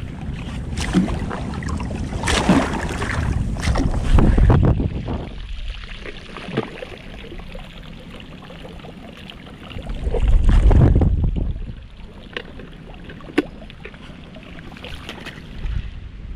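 Wind gusting over an action camera's microphone, with sea water lapping around it. There are two stronger rumbling gusts, a few seconds in and again about ten seconds in, and a few small clicks.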